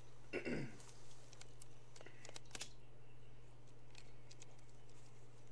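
Scattered soft clicks and rustles of bags and loose items being handled as a car's interior is searched, over a steady low hum. A brief voice sound comes about half a second in.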